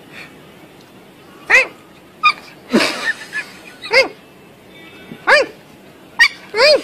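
Puppy giving short, high-pitched yips, about six of them spread over several seconds, each rising and then falling in pitch, with a rougher, noisier call a little before the middle.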